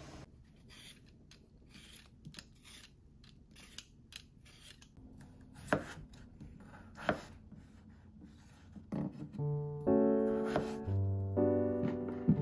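Kitchen knife cutting a peeled potato on a wooden cutting board: a run of light taps and knocks of the blade on the board, two louder knocks about six and seven seconds in. Piano music comes in near the end.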